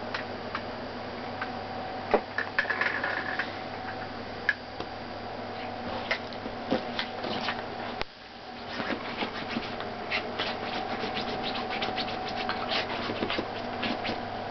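Yorkshire terrier scratching and pawing at bed sheets and blankets to bury a treat: a run of quick scratches and rustles, sparse at first and coming thick and fast in the second half.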